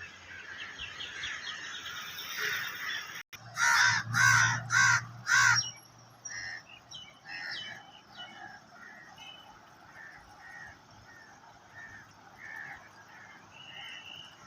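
A crow cawing four times in quick succession, with smaller birds chirping before and after.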